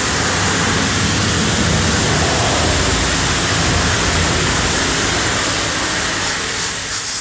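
Self-service car wash pressure wand blasting a high-pressure jet of water onto a car's side and the wet pavement: a loud, steady hiss of spray.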